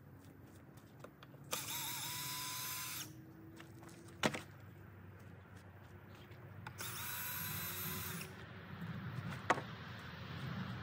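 Power drill driving screws into the wooden swing-set frame: two runs of about a second and a half each, a few seconds apart. A sharp knock comes between them and another near the end.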